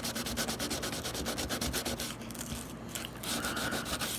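120-grit sandpaper rubbed quickly back and forth over the top of a model railroad rail, smoothing off a small bump of solder left from attaching feeder wires. The rasping strokes come fast and evenly, with a short break a little under three seconds in.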